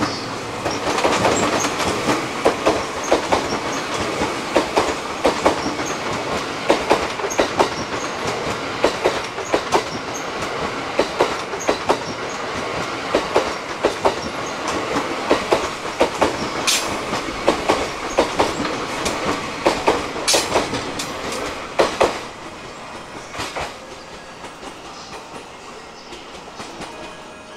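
JR East E001 series TRAIN SUITE Shiki-shima passing, its wheels clicking over rail joints in a steady clickety-clack under the running noise. It dies down about 22 seconds in as the last cars go by.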